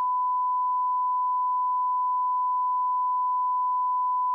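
Steady 1 kHz sine tone at a constant level: a line-up test tone at the head of a recorded TV broadcast.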